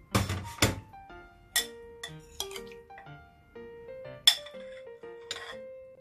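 A metal spoon clinking and scraping against a glass mixing bowl while tossing cubed tofu in sauce: a series of sharp clinks, the loudest about four seconds in. Soft background music with held melody notes plays underneath.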